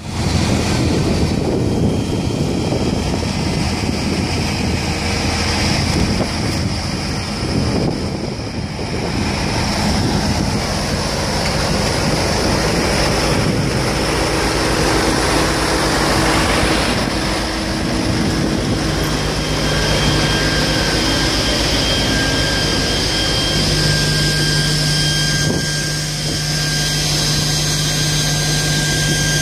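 Fire engine's engine and rear water pump running steadily with hoses connected, a low hum that changes note a couple of times in the second half.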